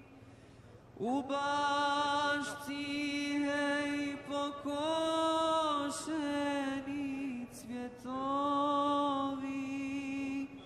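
A single man's voice chanting Islamic religious verses in long, drawn-out melodic phrases on a mostly steady pitch, with short pauses for breath between them. It starts about a second in.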